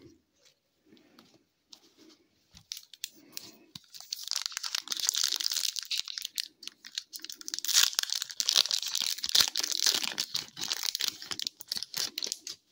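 A hockey card pack's foil wrapper is torn open and crinkled as the cards are pulled out. It starts about four seconds in, after a few seconds of faint card handling, and goes on as dense crinkling almost to the end.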